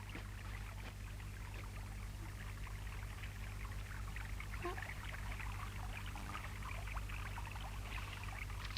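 Faint running water trickling steadily, over a steady low hum.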